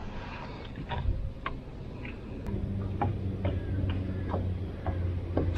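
Scattered small clicks and ticks of fishing tackle being handled in a boat, with a low steady hum coming in about halfway through.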